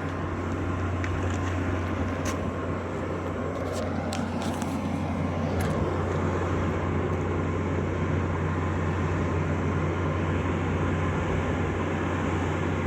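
Grocery store's generator running steadily with a loud, constant low drone, the noise the uploader calls extremely loud on site.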